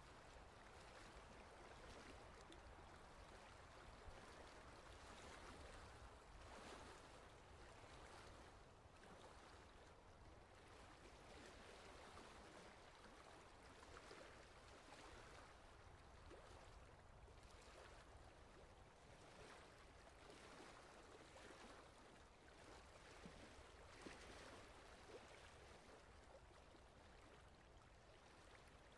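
Faint water swishing and lapping as a small boat moves across calm water, in soft swells every second or two.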